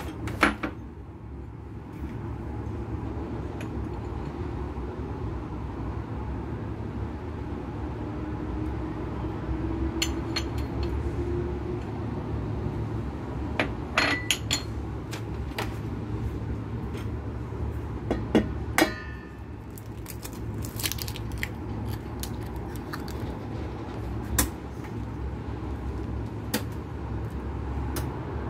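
Steady low hum with scattered sharp clinks and knocks of kitchen things against a stainless steel mixing bowl, several of them close together about two-thirds of the way through.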